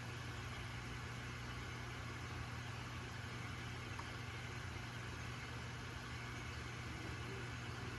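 Steady low hum with an even hiss from running aquarium equipment, with no change throughout.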